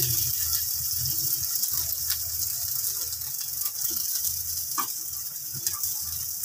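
Boiled urad and chana dal sizzling in hot oil in a nonstick frying pan, with a steady hiss, while a wooden spatula stirs them and scrapes or taps the pan a few times.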